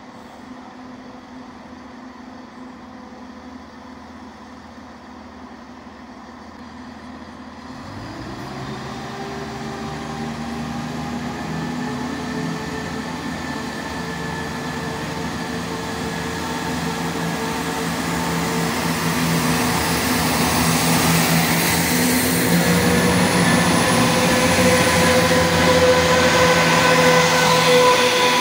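Northern Class 170 Turbostar diesel multiple unit pulling away. Its engines tick over quietly at first, then open up about eight seconds in. The engine note rises slowly and grows steadily louder as the unit accelerates and draws close.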